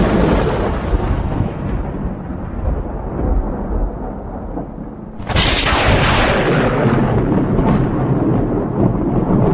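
Thunder: the rumble of a close clap that has just struck dies away over the first few seconds, then a second sharp thunderclap cracks about five seconds in and rolls on as a rumble.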